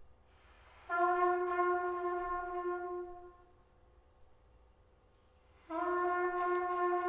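Solo trumpet playing two long held notes on the same pitch. The first comes in about a second in and fades after about two and a half seconds; after a pause the second enters near the end. A soft hiss comes just before the first note.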